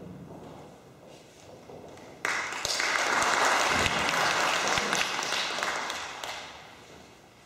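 Audience applauding: the clapping starts suddenly about two seconds in, holds for a few seconds, then dies away near the end.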